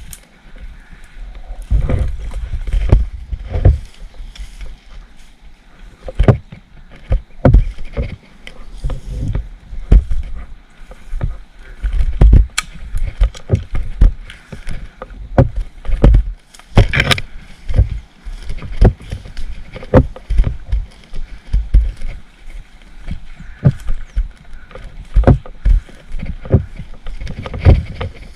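Irregular low thumps, one or two a second, with rustling and a few sharper knocks: footsteps and gear jostling against a body-worn camera while walking through dense undergrowth.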